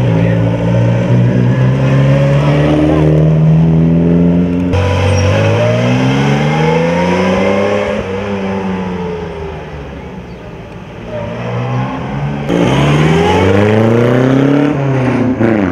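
Engines of vintage open sports racing cars accelerating past one after another, the pitch climbing as each pulls away and falling again as it goes by. The sound changes abruptly to a new car about five seconds in and again about twelve seconds in.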